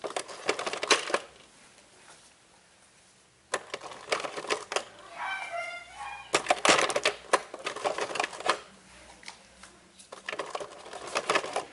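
Four bursts of rapid, clattering clicks and knocks, each lasting one to two seconds, with quiet gaps between.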